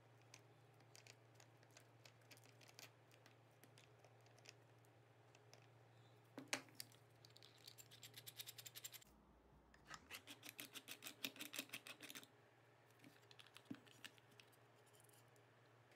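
Faint hand work on the steel hardware of a wooden vise screw: scattered light clicks, one sharper click, then two short runs of rapid, even metal ticking with a break between them.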